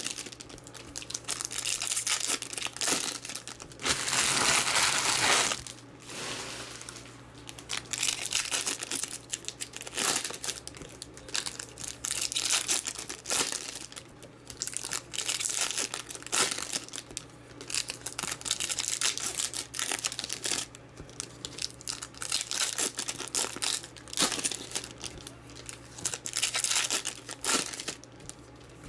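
Foil trading-card pack wrappers crinkling and tearing as packs are opened one after another, in repeated bursts, the longest about four seconds in. A faint steady low hum runs underneath.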